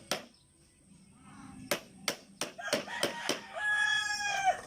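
About six sharp knocks in a loose, irregular run, then a chicken's drawn-out call lasting about a second, which falls away at the end.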